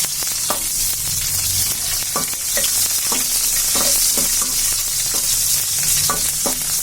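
Cumin seeds and green chillies frying in hot oil in a kadai, a steady sizzle. A spatula stirs them, scraping against the pan in short strokes about eight times.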